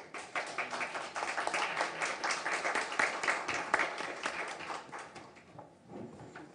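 Audience applauding, a dense patter of clapping that thins out and fades away about five and a half seconds in.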